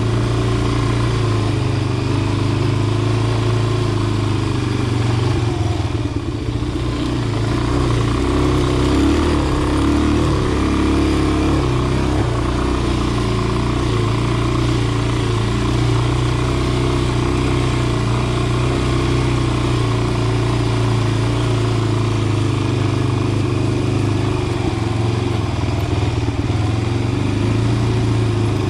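Dirt bike engine running while being ridden, its pitch rising and falling with the throttle, with a short dip about six seconds in.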